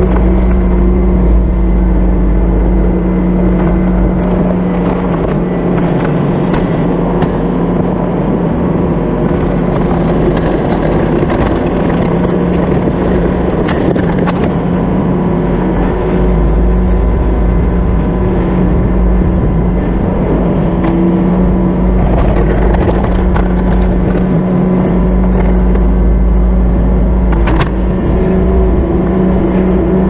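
Bobcat loader's engine running steadily, a continuous even drone with a low rumble underneath.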